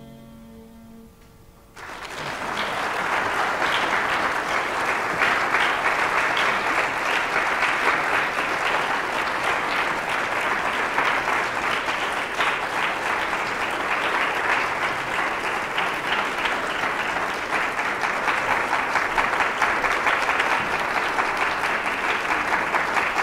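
Audience applauding, starting suddenly about two seconds in as a last held drone note of the music dies away, then steady and dense clapping.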